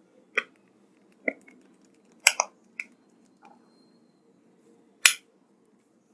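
Plastic back cover of a Panasonic P95 phone being pressed onto the body, its clips snapping into place in a series of sharp clicks. The loudest are a double click about two seconds in and a single click about five seconds in.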